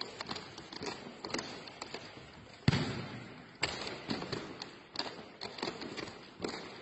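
Volleyball being hit and bouncing on an indoor sports-hall floor: about four sharp thumps, the loudest about two and a half seconds in, each ringing out in the hall's echo, among lighter taps.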